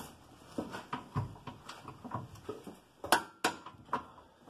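Irregular metallic clicks and knocks of a hand tool working on a control-arm mounting bolt, with three sharper knocks near the end.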